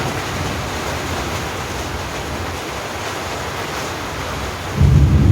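Steady hiss of rain. A loud low rumble breaks in near the end.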